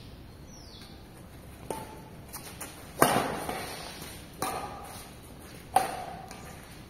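A badminton rally: four sharp racket-on-shuttlecock hits, each with a short ringing ping from the strings. They come about every 1.3 to 1.4 seconds, and the second is the loudest.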